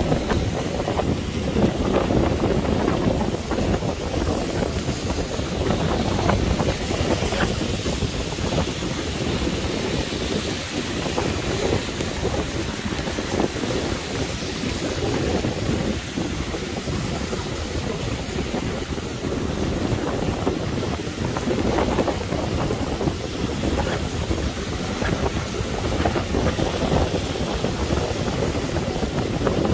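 Strong wind buffeting the microphone, a dense, gusting rumble, with the hiss of surf and rain beneath it.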